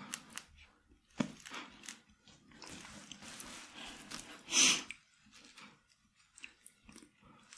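Close-miked mouth and breath sounds: faint lip clicks and soft breathing, with one louder breathy burst a little past halfway, from people holding out against the heat of super-spicy seaweed.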